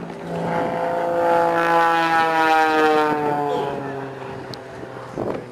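Aerobatic propeller plane passing by: its engine and propeller drone swells to a peak about two to three seconds in and then fades, the pitch falling steadily as it goes past.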